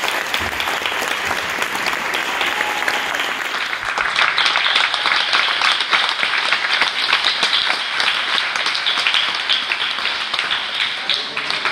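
Audience applauding, a dense patter of many hands clapping that grows louder about four seconds in.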